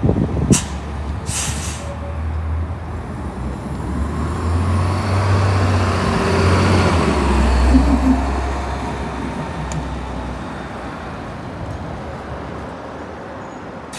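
2012 New Flyer C40LF CNG city bus passing close and pulling away, its natural-gas engine drone building to its loudest midway and then fading. A short air brake hiss comes about a second in.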